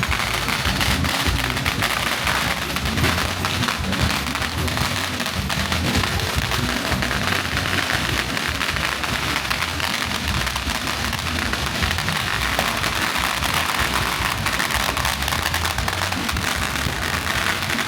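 Music with a steady low beat, over a dense continuous crackle.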